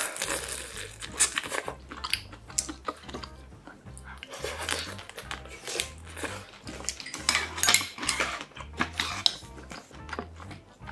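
Close-miked eating sounds: chewing, lip smacking and sucking on shrimp held in the fingers, with many sharp clicks of chopsticks and a spoon against ceramic bowls.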